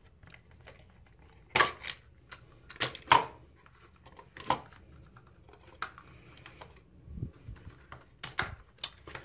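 Hard plastic clicks and knocks as a razor-trimmer handle and its plastic length guards are pried out of a plastic packaging tray: irregular sharp taps, the loudest about three seconds in and a quick cluster near the end.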